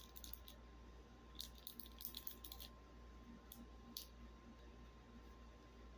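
Fidget toy clicking as it is worked by hand: faint quick runs of small clicks in the first three seconds, then two single clicks about four seconds in.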